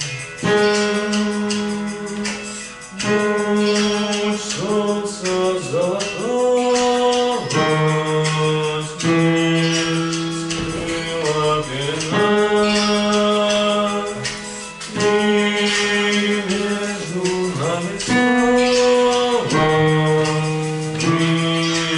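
A singer holding a series of long sung notes, each about two seconds, sliding in pitch from one to the next, over an instrumental accompaniment.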